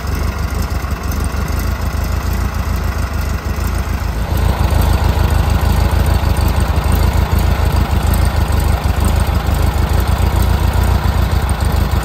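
1973 Volkswagen Beetle's air-cooled flat-four engine running, heard at its twin-tip exhaust as a steady, fast-pulsing low rumble. It gets louder about four seconds in.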